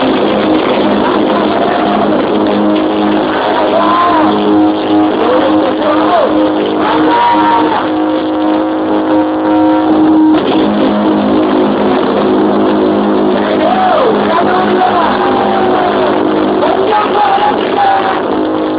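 Live rock band's distorted electric guitars holding droning notes and feedback, with wailing pitch bends sliding up and down over them. The held drone breaks off about ten seconds in and then comes back. The recording is loud and overdriven, as from a phone's microphone close to a club PA.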